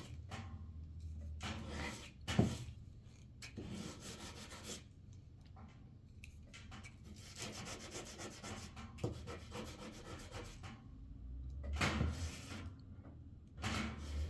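Irregular scraping and rubbing strokes of a hand tool on hard plastic, with a quicker run of short strokes in the middle and louder scrapes about two seconds in and near the end.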